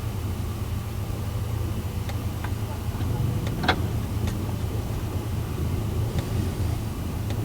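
Steady low rumble of a vehicle running, with a few scattered sharp ticks, the loudest about halfway through.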